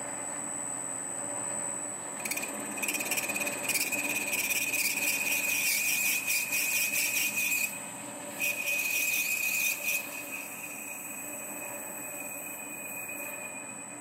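Warco 280V metal lathe running, its tool cutting into the spinning hammer head with a loud high-pitched squeal, first for about five seconds, then after a short break for under two more, over the lathe's steady hum.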